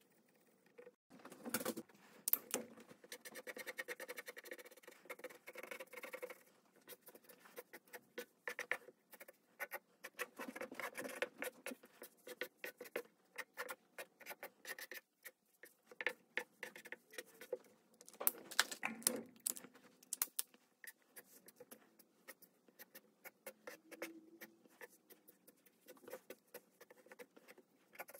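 Brush marker nib scratching across drawing paper in runs of quick colouring strokes, with many small ticks in between.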